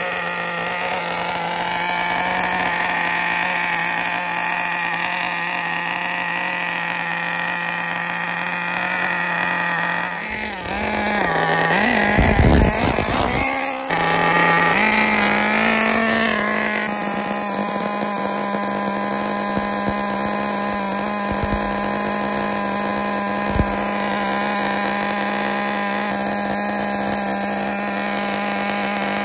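Tamiya FR-32FX 5.2 cc nitro engine idling steadily as it warms up on its first run. About ten seconds in, its pitch wavers for a few seconds and a burst of low rumbling noise comes through. It then settles back to a steady, slightly higher idle.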